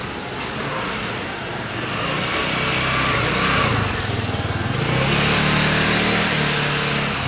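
Motor vehicles passing close by on a city street, over steady traffic noise: one goes by about two seconds in, its engine note dropping as it passes, and another follows about five seconds in.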